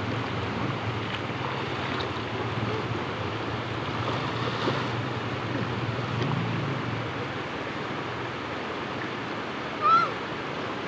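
Shallow river water rushing over rocks and splashing around people wading and swimming, a steady wash of noise. About ten seconds in, a child gives a short, high-pitched shout.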